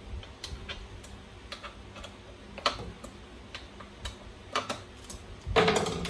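Scattered light clicks and taps of hands handling the plastic and metal parts of a large-scale RC truck, irregular at roughly one every half second to second, with a louder rustling clatter about five and a half seconds in.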